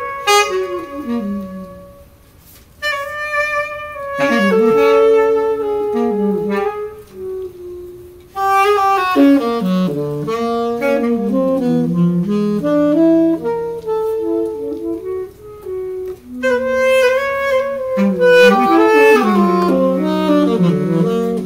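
Three saxophones playing together in harmony, several notes held at once with lower lines moving beneath. There is a short drop to quiet about two seconds in, and then the next phrase begins.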